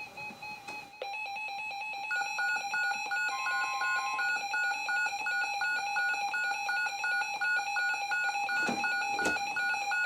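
Weather alert radios sounding an incoming NOAA Weather Radio warning alarm: a steady electronic alert tone starts about a second in, and a higher beep pulsing about three times a second joins it a second later.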